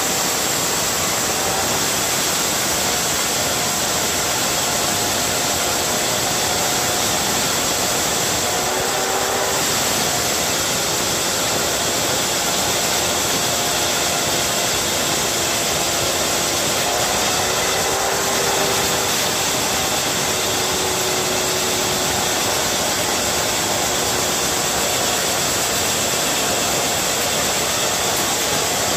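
Hilti diamond core drill running steadily, its 180 mm core bit grinding into the wall under hand feed: a constant motor noise with a faint whine that wavers slightly in pitch.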